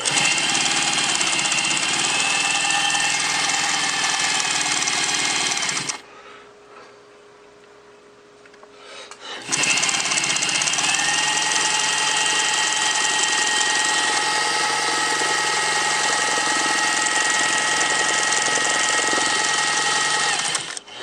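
Pfaff 130 sewing machine running fast, stitching with a rapid mechanical clatter over a steady motor whine. It stops about six seconds in and starts again about three and a half seconds later, running on until just before the end.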